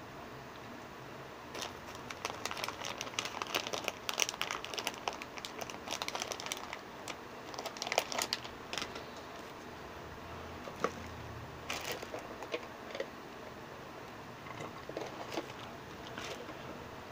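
Tarot cards being shuffled and handled by hand: a dense run of quick papery rustles and clicks for several seconds, then only scattered single taps and slides.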